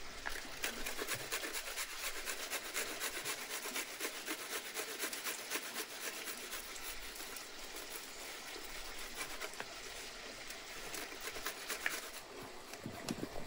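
Stainless steel box grater rasping as a small vegetable piece is rubbed across its blades in quick, repeated strokes, easing off near the end.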